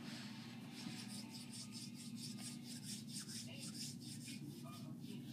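Hands rubbing and rolling soft Play-Doh between the palms, a faint, rhythmic rubbing of about four strokes a second.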